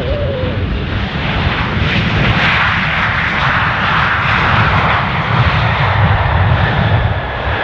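Jet aircraft passing close by, its engine noise swelling to a loud rush with a low rumble a few seconds in. A thin turbine whine falls slowly in pitch near the end as it moves away.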